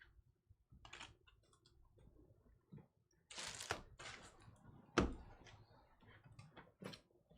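Trading cards being handled and set down on a table: light taps and clicks, a short sliding rustle about three and a half seconds in, and a sharp click about five seconds in.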